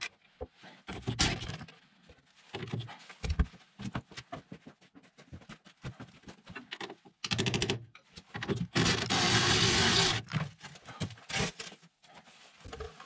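Hand tools knocking and scraping against the underside of a mini-excavator, in short irregular clanks, with a quick run of clicks about seven seconds in and a longer scraping burst of about a second and a half near nine seconds.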